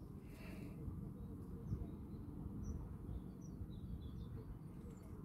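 Faint birds chirping a few times over a steady low rumble of outdoor noise.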